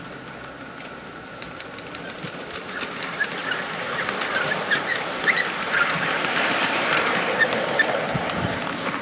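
5-inch gauge ride-on miniature train running past on curved track: a rolling clatter of small wheels on the rails with many short squeaks, getting louder from about two seconds in and peaking near the end before easing off.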